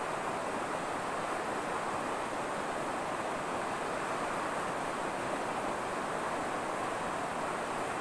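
Shallow mountain river rushing steadily over stones, an even, unbroken noise.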